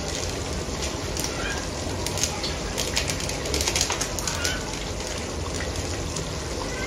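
Stew cooking in a large aluminium pot over the fire: a steady hiss with scattered crackling, busiest in the middle, and a few faint bird chirps behind it.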